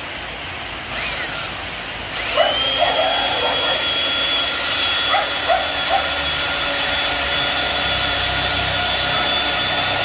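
Small 100 V electric power tool motor, missing its rotating head, switched on about two seconds in and running at a steady high whine. A few light clicks come soon after it starts.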